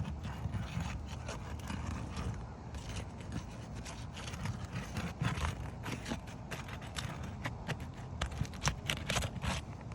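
A metal snake tool (shingle ripper) scraping and clicking against asphalt shingles as a loose shingle is worked free, with a flurry of sharp clicks and scrapes in the second half, over a low steady rumble.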